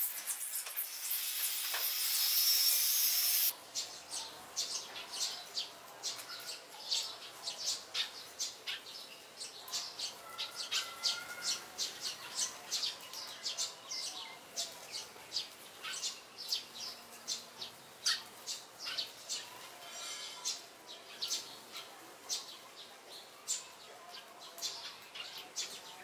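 A loud steady hiss for the first three and a half seconds, cutting off suddenly, then a group of sparrows chirping in quick, repeated short notes.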